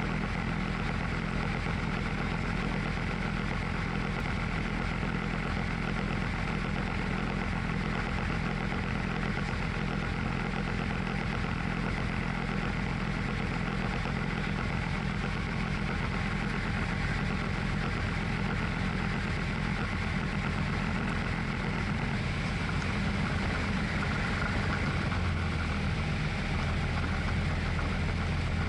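Steady cabin drone of a Tecnam P2002 Sierra light aircraft's piston engine and propeller, with airflow noise, heard from inside the cockpit on approach to the runway. A low hum grows stronger near the end.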